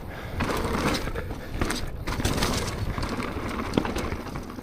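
Downhill mountain bike rolling fast over a dirt trail: a continuous rush of tyre and riding noise with scattered clicks and knocks from the trail surface and the bike.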